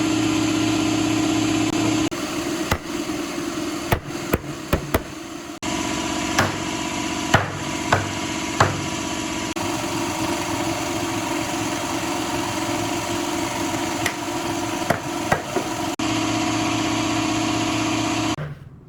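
A machine running with a steady hum, while something is knocked and tapped several times, in sharp single strikes.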